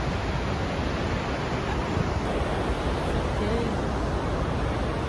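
Steady roar of rushing water from Urridafoss, the waterfall on the Thjorsa river, an even rushing noise with no breaks.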